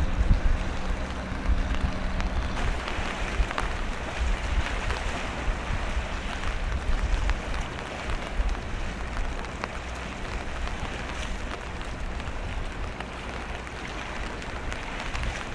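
Strong wind buffeting the microphone, over a steady hiss of rain and choppy sea. The gusts are heaviest near the start and ease off later.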